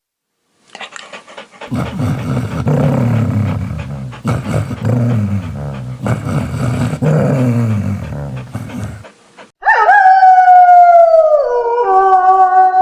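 A dog making rough, low, drawn-out grumbling calls for several seconds, then a long loud howl that starts high, slides down, and drops a step lower before holding.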